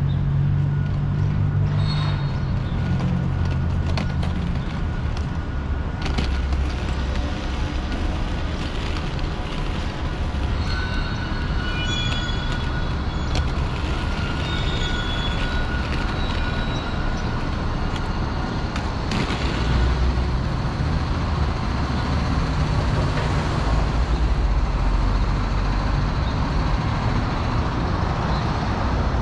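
Downtown street traffic: a steady rumble of car and truck engines and tyres passing close by, with a faint high whine through the first part.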